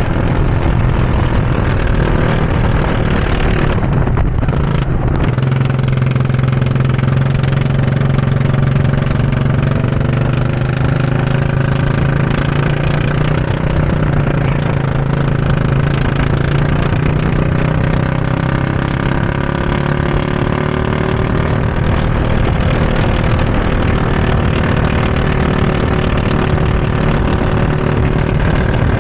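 Go-kart engine running at speed on a lap, heard loud from on board the kart. Its pitch dips briefly about four seconds in, then holds and wanders slowly up and down with the throttle through the corners.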